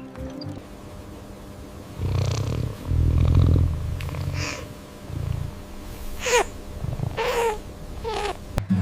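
Kitten purring in a low rumble, then meowing three times in short calls about a second apart.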